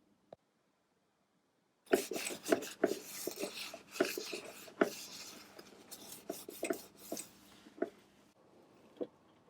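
Cloth harness tape being peeled and wrapped around a car wiring loom: a dense crackling rustle that starts about two seconds in and thins out after about eight seconds.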